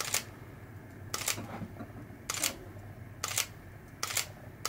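Sony A7S mirrorless camera's mechanical shutter firing five times, single sharp clicks about a second apart.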